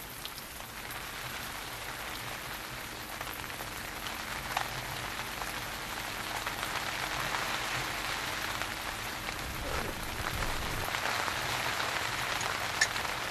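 Heavy rain falling steadily, with scattered drop hits; it grows slowly louder, and a single sharp tap stands out near the end.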